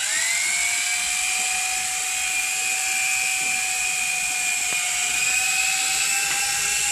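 Toy remote-control helicopter's small electric motor and rotor spinning up quickly at the start, then holding a steady high whine.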